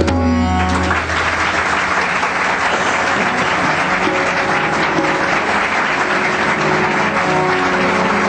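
Audience applauding at the end of a song, starting about a second in as the music with tabla stops. A steady held instrumental drone carries on faintly beneath the clapping.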